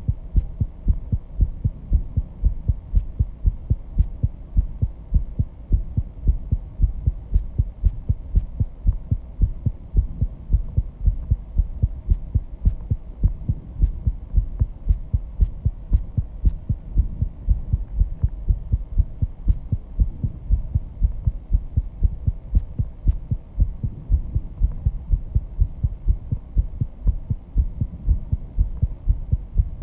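A person's heartbeat picked up by a microphone: a quick, even rhythm of low thumps, raised by intense exercise.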